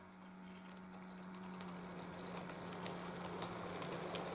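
OO gauge model train on the move: the Class 31 locomotive's Hornby motor gives a steady hum while the rolling wheels of the coaches rumble and click over the rail joints, growing louder as the train runs past.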